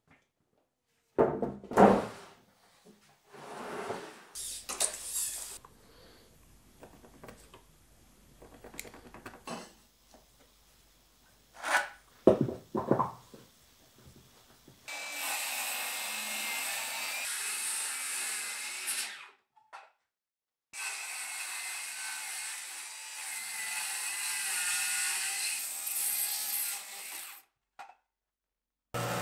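Woodworking shop sounds: wooden boards knocking together as they are handled, loudest about 2 seconds and 12 seconds in, with smaller taps and scrapes between. From about halfway in, a power tool runs steadily, stopping briefly once and again shortly before the end.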